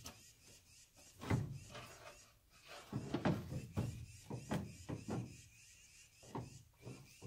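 Plastic tail light housing of a pickup truck knocking and clunking against the body as it is worked back into its opening, a series of irregular thumps.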